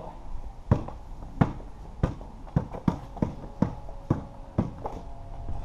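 A basketball bouncing on a hard surface, about a dozen thuds at an uneven pace of roughly two a second, as it is dribbled.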